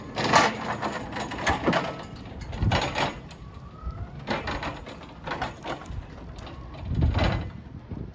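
Jungheinrich ERD 220 electric ride-on pallet stacker driving across concrete paving, with surges of noise coming about every second or so. A faint whine rises in pitch about four seconds in.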